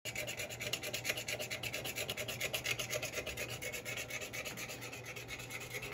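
A metal scrubber being rubbed rapidly back and forth over the glass top of an electric range: a continuous run of quick, gritty scraping strokes.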